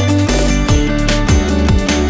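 Upbeat background music with a steady beat, a bass line and drum strokes.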